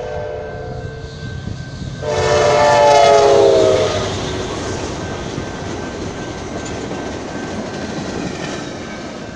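Amtrak Talgo passenger train passing at speed: its horn gives a short blast, then a loud long blast about two seconds in that drops in pitch as the locomotive goes by, followed by the steady rush and rumble of the cars rolling past, slowly fading.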